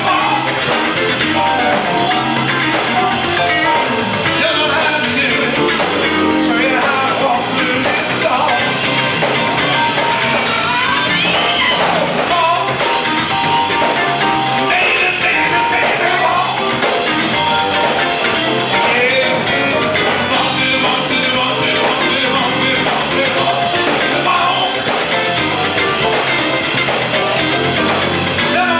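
Live rock-and-roll band playing at a steady loud level, with electric guitar, bass, keyboards and drums.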